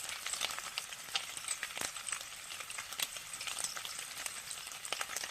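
Bacon frying in a pan: a steady sizzle with irregular crackles and pops of spitting fat.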